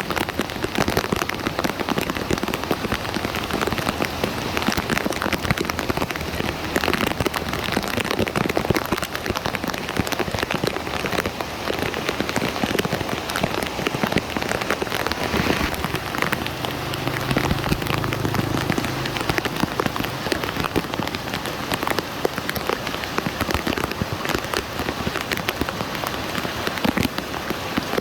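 Heavy rain falling on hard surfaces, a dense steady patter of drops.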